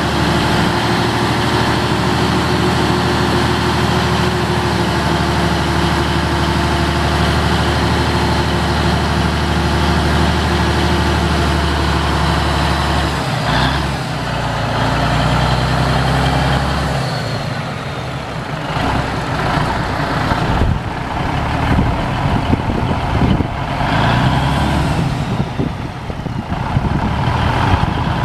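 1980 Ford L9000 dump truck's Cummins NTC290 diesel engine running while the power take-off drives the hydraulic hoist raising the dump bed. Steady for the first half, the engine sound shifts about halfway through and turns uneven, with scattered knocks, toward the end.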